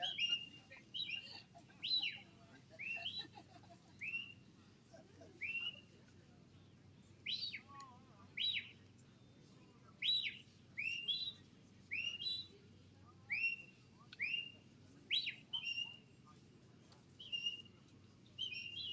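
A sheepdog handler's whistle: a run of short, shrill whistled commands, some sliding down in pitch and some rising then held, about one a second with a brief pause about six seconds in, directing the dog as it drives the sheep.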